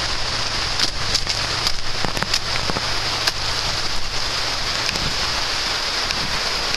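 Heavy rain falling: a steady hiss scattered with many sharp drop ticks, over a steady low rumble.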